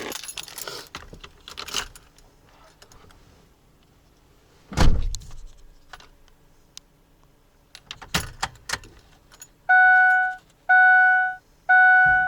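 Keys jangling and clicking, a single heavy thump about five seconds in, then a Ford E-350 van's dashboard warning chime starting near the end and repeating about once a second, three chimes.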